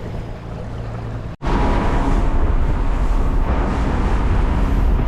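Boat motor running steadily. After a cut about a second and a half in, the boat is heard running at speed, louder, with strong wind buffeting the microphone.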